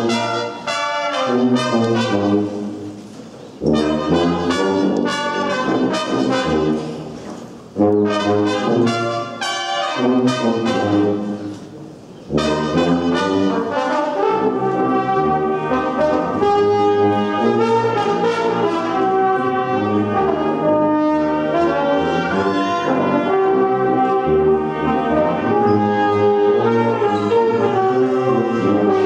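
Small brass band of two sousaphones, a trombone and two trumpets playing together. The opening phrases break off briefly three times, and then the band plays on without a break from about twelve seconds in.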